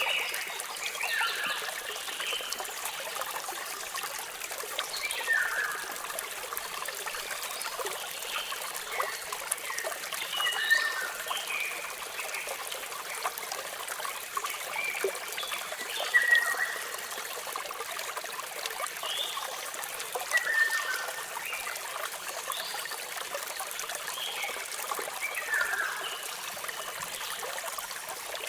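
Steady rush of falling water, with small birds chirping in short, falling phrases every four or five seconds over it.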